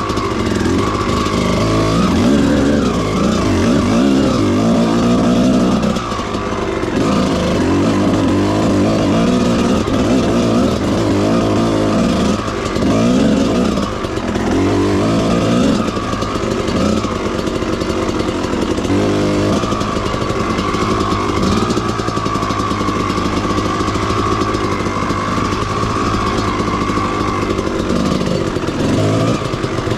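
Two-stroke dirt bike engine running under load, its revs rising and falling with the throttle throughout, with a brief dip about six seconds in.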